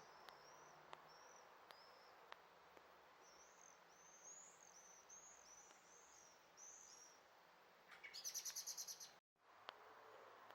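Faint songbird chirps, a run of short high arched notes repeated about twice a second, then a louder fast high trill for about a second near the end that cuts off abruptly.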